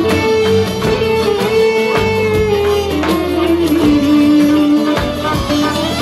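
Live Turkish folk ensemble of bağlama, violins, clarinet, kanun and davul drum playing an instrumental passage. The lead melody steps downward and then climbs again near the end, over repeated drum beats.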